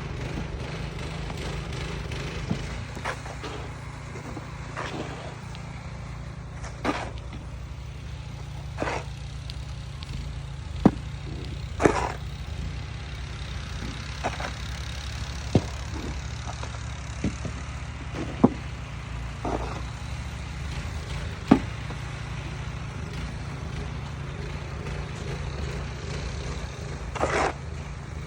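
An engine running steadily with a low drone, with scattered sharp knocks and a few short scrapes on top every second or two.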